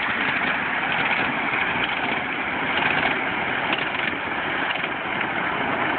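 Ride-on miniature railway train running along its track, a steady noisy rumble with faint light clicks.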